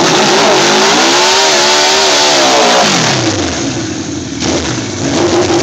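Suzuki GSX1100SZ Katana's inline-four engine, loud, revving up and back down: the pitch climbs for about two seconds and then falls away, settling lower, and picks up again near the end.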